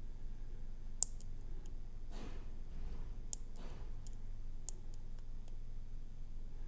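A dimple pick and tension tool working inside an Ultion dimple cylinder lock during picking: a few sharp, light metallic ticks, the loudest about a second in, with softer scraping between.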